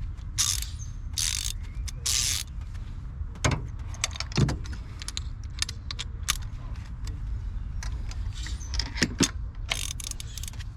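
Socket ratchet clicking in short bursts while a spark plug is tightened into the cylinder head, with a few separate sharp clicks in between.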